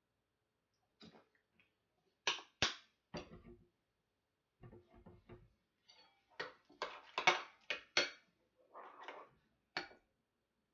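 A spoon knocking and scraping in a bowl as thick blue shampoo is stirred into slime, heard as a series of sharp clicks that come in a quick cluster from about six to eight seconds in. There are two sharp clicks about two seconds in, after the shampoo bottle has been squeezed.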